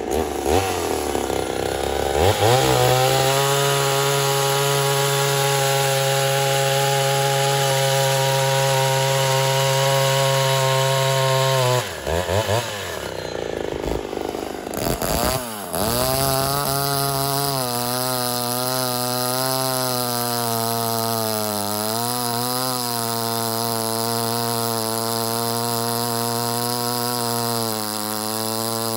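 Ported Poulan 245a two-stroke chainsaw running at high revs through cuts in wood. The engine pitch climbs, holds, and drops about twelve seconds in. After a break it runs high again, its pitch wavering as it works.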